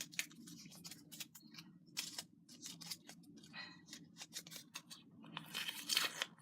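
Paper slips rustled and clicking as a hand rummages through them, with a denser crinkling burst near the end as one is drawn and unfolded.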